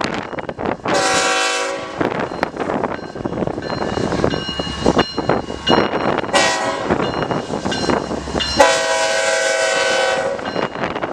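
A freight locomotive's air horn sounds three blasts: a short one about a second in, another short one around six seconds, and a longer one near nine seconds. Under it runs the rumble of a five-unit lash-up of BNSF and Norfolk Southern diesel locomotives rolling past, with wheel clicks over the rail joints.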